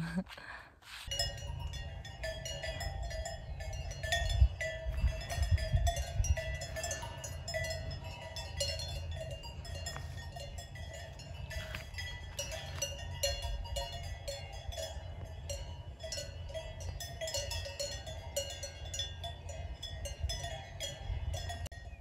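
Bells on a herd of grazing cattle, many of them clanking and ringing at once in an irregular jangle.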